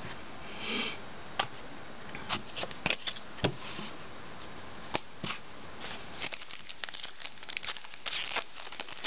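Hands handling trading cards and a foil card pack: scattered small clicks and taps, with short bursts of foil wrapper crinkling, the longest near the end as the pack is opened.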